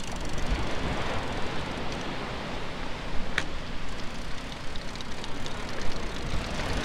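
Wind buffeting the microphone over the steady wash of surf breaking on a beach, with one sharp click about three and a half seconds in.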